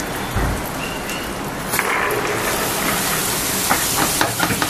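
Freshly washed, chopped long beans sizzling in hot fried masala in an aluminium pressure cooker: a steady hiss, with a few sharp clicks near the end.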